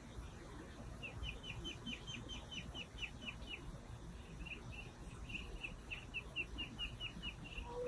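Ducklings peeping: quick runs of short, high, falling peeps, about five a second, with a pause about halfway through.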